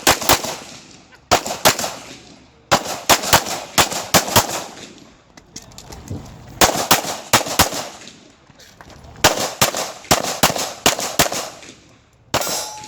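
Pistol fired rapidly during a USPSA stage run: sharp shots in pairs and quick strings, with short pauses between groups as the shooter moves and engages new targets.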